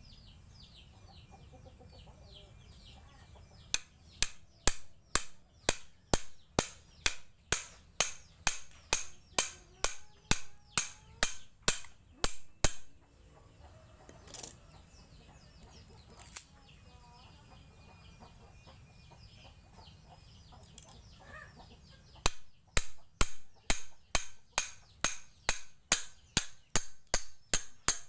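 A small hammer striking the back of a machete blade to drive it down and split a thick woody stem cutting lengthwise: sharp metal-on-metal knocks, about two to three a second, in two long runs with a pause of several seconds between them.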